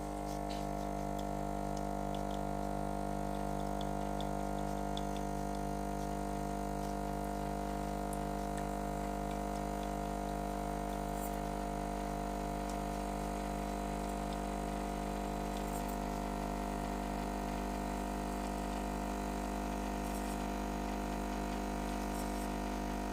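DeLonghi espresso machine's pump running steadily under pressure, forcing hot water through the packed coffee grounds as the shot extracts: an even, unbroken hum.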